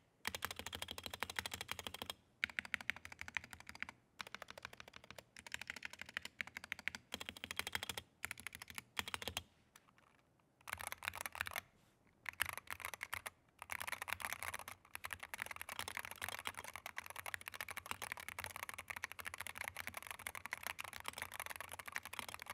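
Typing on a Wooting 60HE keyboard, with magnetic Hall-effect linear switches under PBT double-shot keycaps in a plastic case: fast runs of keystroke clacks broken by a few short pauses, the longest about ten seconds in.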